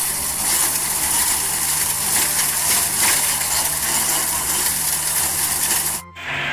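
Steady mechanical rattling and rubbing with a strong hiss, as from a small toy mechanism; it starts and stops abruptly.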